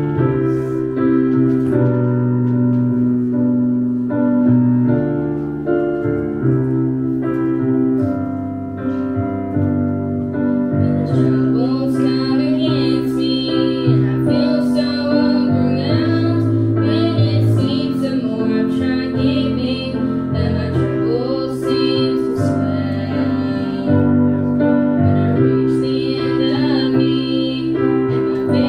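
A recorded song played back: piano introduction, then a group of young women singing with the piano accompaniment from about eleven seconds in.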